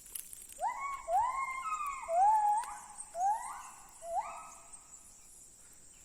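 Gibbon calling: a series of about six whooping notes, each sliding up in pitch and then holding, loudest about two seconds in and ending a little after four seconds.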